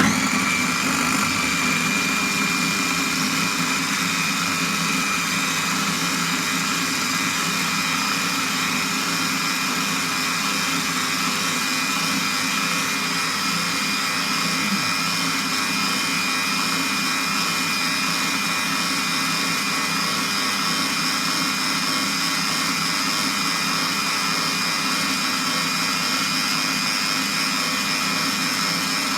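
Electric blender switched on and running steadily at high speed, blending a liquid mix of eggs, banana and milk; a loud motor whine.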